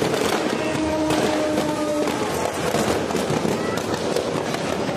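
Fireworks in a burning effigy crackling and popping rapidly and continuously.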